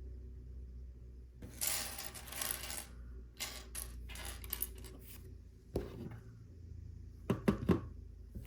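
Loose plastic LEGO pieces rattling and clicking as hands sift through them to find a slotted ramp piece: a rattle about a second and a half in, then scattered clicks, a soft knock near the middle and a few sharp clicks near the end.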